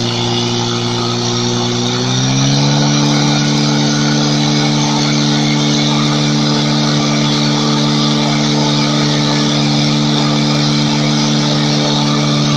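Portable fire pump engine running hard, revving up about two seconds in and then holding steady at high revs while it drives water through the hoses to the nozzles.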